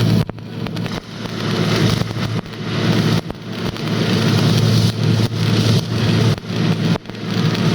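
Electric arc welding: a steady hum under a dense, harsh crackling hiss, with brief drops several times.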